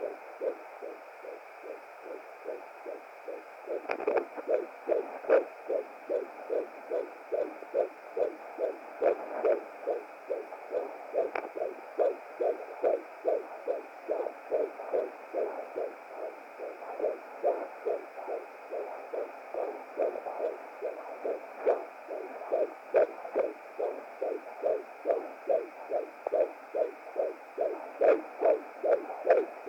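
A 17-week fetus's heartbeat picked up through a Hi Bebe BT200 home fetal Doppler: fast, even pulses of about two and a half beats a second over a steady hiss. The beat is faint at first and comes through strongly from about four seconds in.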